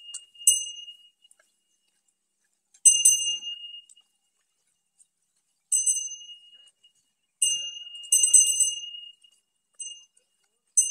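A metal bell hung on a walking elephant ringing in separate single strikes, about six of them at uneven gaps of one to three seconds, each a clear high ring that dies away.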